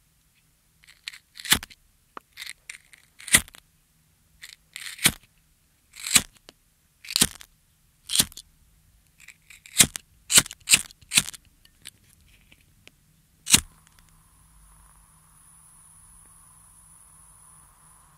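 Disposable lighter flicked again and again: sharp clicks of the spark wheel and striker, some with a short scratchy rasp of the flint. After a last loud click about 13 seconds in, a faint steady hiss of the flame burning follows.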